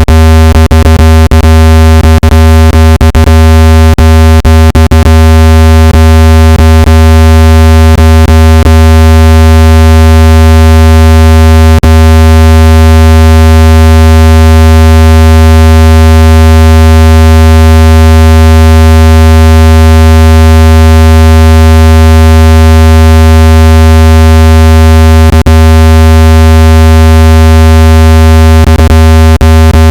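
Loud, steady, low electronic tone with a buzzy edge, played to vibrate water out of a phone speaker. Brief clicks break through it several times in the first few seconds and again near the end.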